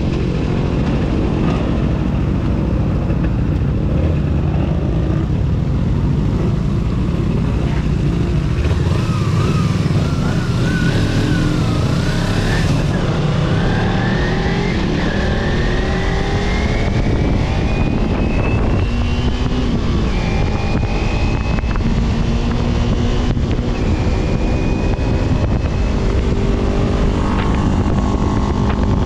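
Road vehicle engine running at speed under steady rushing wind on the microphone, its pitch rising gradually through the middle as it accelerates.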